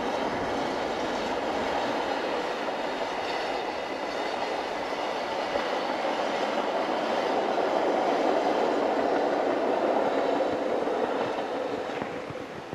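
Rhaetian Railway metre-gauge passenger train running past, a steady rumble of wheels and carriages that grows louder over the second half and drops away just before the end as the last wagons go by.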